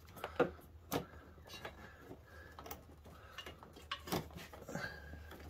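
A handful of small clicks and knocks as a carburetor is handled and worked into place on an ATV, the sharpest within the first second and another about four seconds in, over a faint low hum.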